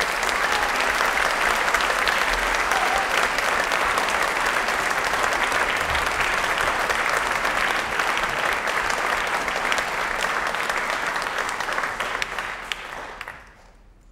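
Audience applauding steadily, the clapping dying away quickly about a second before the end.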